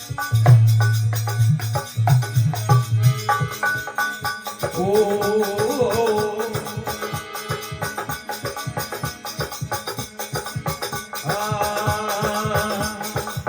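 Instrumental interlude of a live Rajasthani folk bhajan: steady, evenly paced hand percussion with a rattling, shaker-like sound. A heavy low drum-like pulse drops away after about three seconds, and a wavering melody line comes in about four seconds in and again near the end.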